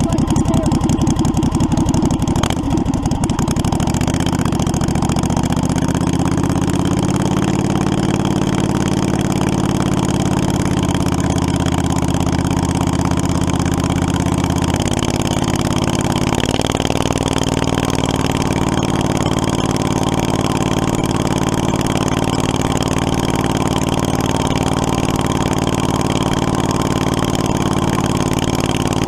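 Go-kart's 670cc Predator V-twin engine running, uneven for the first few seconds and then holding a steady note, with a small change in engine speed about halfway through.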